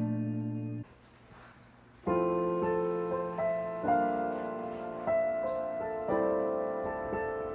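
Background music: a guitar chord dies away, a brief near-silent pause, then soft keyboard chords that change about once a second.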